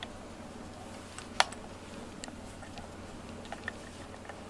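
Scattered small clicks and ticks of a cat nosing and rubbing against a plastic bristle grooming brush, the sharpest click about one and a half seconds in.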